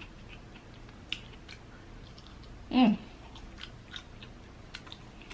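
Close-miked chewing of pulled rotisserie chicken meat, with small wet mouth clicks. A short hummed voice sound comes a little before the middle.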